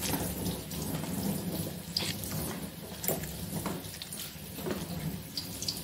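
Wet grated cabbage-and-gram-flour mixture squelching and crackling now and then as a hand squeezes it into balls in a steel bowl, over a steady hiss.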